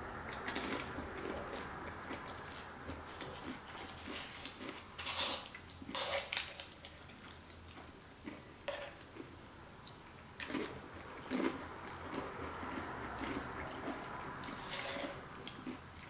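Close-up chewing of tortilla chips loaded with hot crab dip: crunching mixed with soft, wet mouth sounds, with a handful of sharper crunches spread through.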